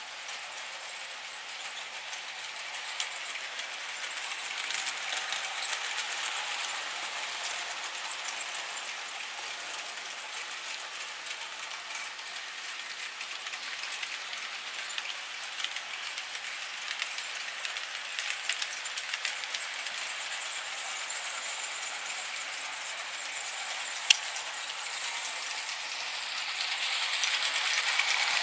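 HO scale model trains running on the layout track: a steady high hiss and rattle of small wheels and motors, with scattered light clicks. It grows louder near the end as a train passes close by, and a single sharp click stands out a few seconds before that.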